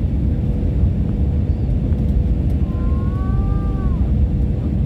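Airliner cabin noise on final approach: the steady low noise of the jet engines and airflow, with a faint steady hum underneath. About three seconds in, a short wavering tone lasts just over a second and dips as it stops.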